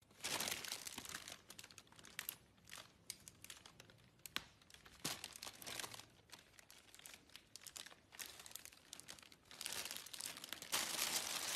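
Thin plastic carrier bag crinkling in irregular crackly bursts as a cat sits in it and the bag is handled, loudest near the end as it is lifted by its handles with the cat inside.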